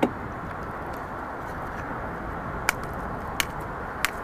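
Steady wind and sea noise in a small boat on open water, with three short, sharp clicks in the second half as a caught fish is handled.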